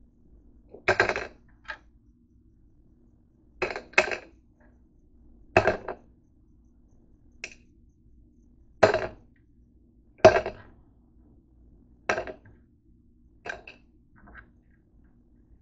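Tablets being picked up and set down by hand on a wooden table: about ten sharp clicks and knocks, a second or two apart, some in quick pairs.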